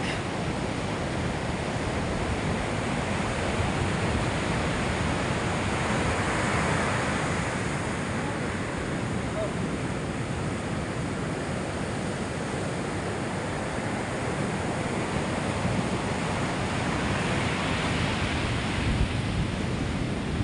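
Sea surf breaking and washing up a sandy beach: a steady rush of water noise that swells twice, about a third of the way in and again near the end, as waves come in.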